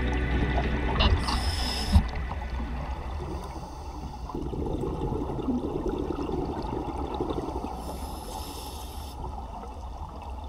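A scuba diver breathing through a regulator underwater: hissing breaths about a second in and again near the end, with bubbling exhalation between them, over a steady low rumble of water on the camera housing.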